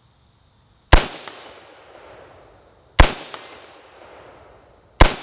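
Three rifle shots from a BCM AR-15 fitted with a hammer comp muzzle brake, about two seconds apart, each followed by a long rolling echo and a faint tick a moment later.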